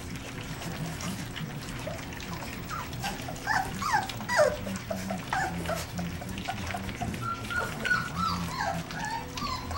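Young puppies whimpering and squeaking in many short, falling cries that start about three seconds in, with faint clicks of the litter feeding from a shared metal pan.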